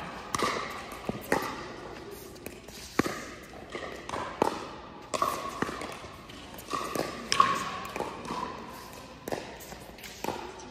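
Pickleball rally: paddles striking the hollow plastic ball in sharp pops about once a second, each ringing briefly and echoing in a large indoor hall. The loudest hit comes about two thirds of the way through.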